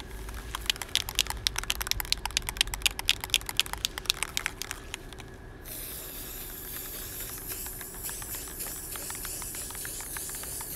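Aerosol spray-paint can being shaken, its mixing ball rattling rapidly for about five seconds. Then a steady hiss as paint is sprayed.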